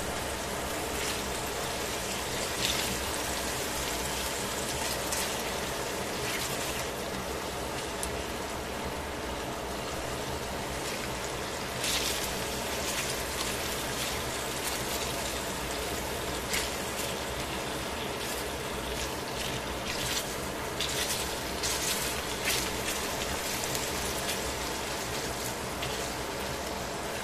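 Chicken pieces frying in oil in a stainless steel pan: a steady sizzle with scattered pops and crackles while tongs turn the pieces.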